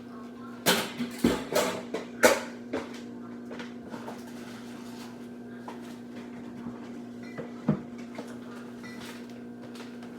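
Kitchen clatter: a quick run of knocks and bangs in the first three seconds and one more knock later, over a steady hum.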